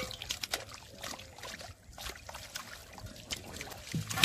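Wet splashing, slapping and clicking as large catfish are lifted out of shallow muddy water and dropped into a metal pot of water, with a loud sharp splash at the start and another near the end.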